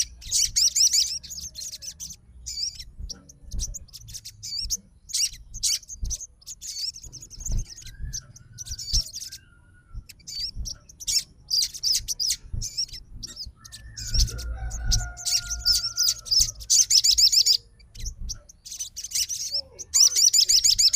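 Crimson sunbird (sogon) singing: bursts of fast, high, twittering trills in quick succession, with a couple of lower drawn-out whistled notes partway through.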